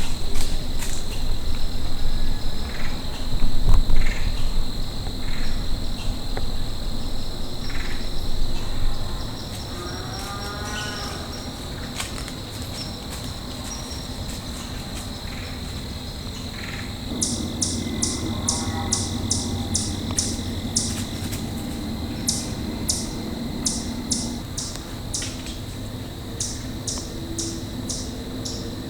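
Outdoor countryside ambience: a steady high insect drone, with a low rumble for the first nine seconds or so. An animal calls briefly twice, about ten and nineteen seconds in. Quick high ticks repeat, about three a second, through the second half.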